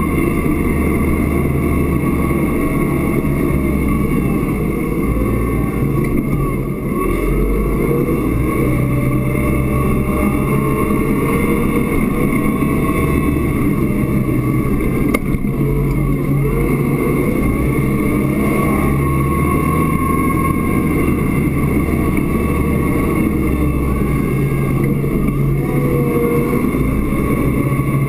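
Massey Ferguson 1758 garden tractor's engine running steadily as the tractor pushes snow with its front plow blade, heard from inside the tractor's cab.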